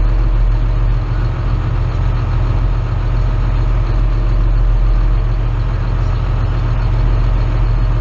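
John Deere 2940 tractor's diesel engine running steadily at idle, a low even hum heard from inside the cab.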